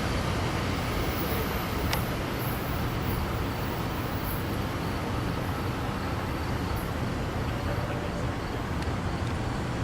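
SEPTA electric commuter train running with a steady rumble and hiss, a short click about two seconds in.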